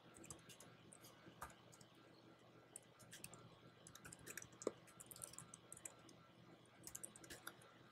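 Faint, irregular clicking of keystrokes on a computer keyboard as a line of text is typed.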